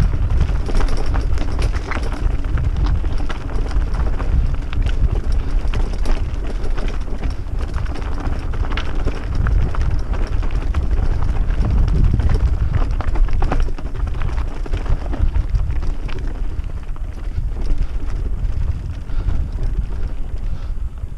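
Mountain bike riding over a rocky dirt track, heard on a GoPro action camera's microphone: wind buffeting the mic with a constant low rumble, and the tyres and frame rattling and clicking over loose stones. The rattling thins out near the end as the track turns grassy.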